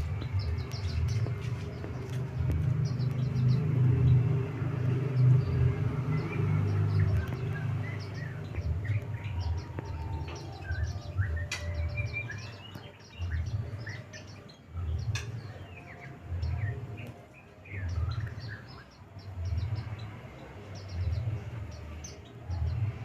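White-eyes (pleci) calling with many short, high chirps and a few quick whistled glides, over a louder low rumble that starts pulsing about once every second and a half around halfway through.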